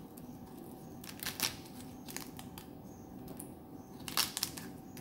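Snake fruit's thin scaly skin cracking and tearing as it is peeled off by hand: short crisp snaps in three small clusters.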